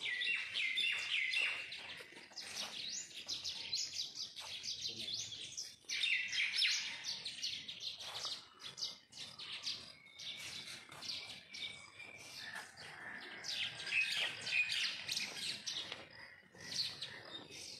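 Many small birds chirping together, a dense chorus of short overlapping calls.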